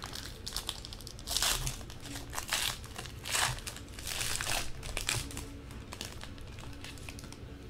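Foil trading-card pack wrapper crinkling as it is torn open and handled by hand. It comes in several rustling bursts through the first five seconds, then fainter handling.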